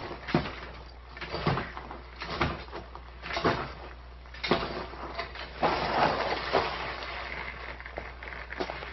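Slow, evenly paced footsteps, about one a second, with a longer scuffing noise about six seconds in.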